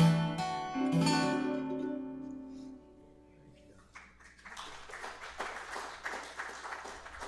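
A small string band of acoustic guitar and mandolin ends a song on a final strummed chord that rings and fades away over about three seconds. About a second later, applause starts and keeps going.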